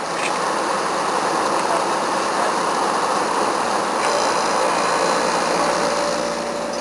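A 1969 Westinghouse window air conditioner running: its fan gives a steady rush of air. Its Copeland compressor adds a faint hum, and steady tones come in about four seconds in.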